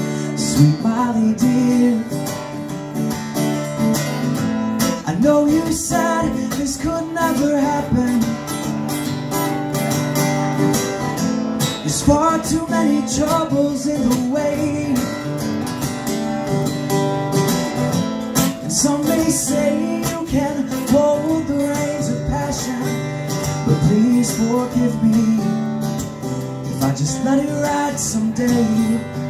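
Live acoustic music: two acoustic guitars being strummed, with a man's voice singing a melody over them.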